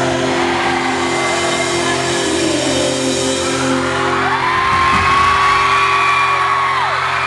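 Live rock band playing, electric guitars and drums, with steady sustained chords throughout. About four seconds in, a long high note slides up, holds, and drops away near the end.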